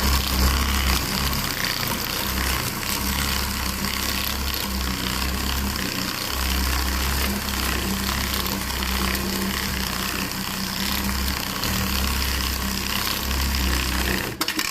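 A machine running steadily, with a deep hum that swells and fades irregularly under a constant hiss.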